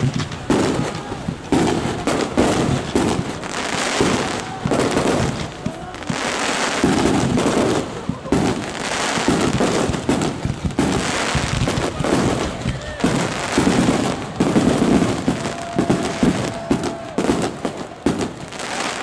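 Aerial fireworks display: a dense run of shell bursts, many bangs in quick succession with crackling between them.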